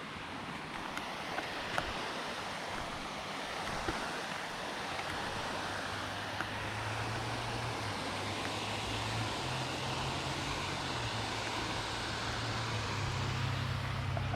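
Steady outdoor wind-and-water noise, with a low engine drone coming in about five seconds in and getting gradually louder, stepping in pitch a couple of times.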